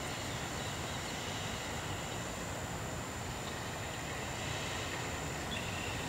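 Steady outdoor background noise: a low rumble with an even hiss and a faint, steady high-pitched whine.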